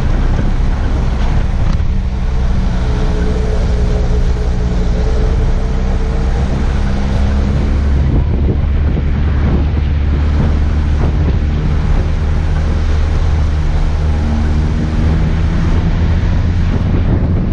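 Off-road 4x4's engine running steadily at low revs while driving along a gravel track, with continuous road and tyre noise.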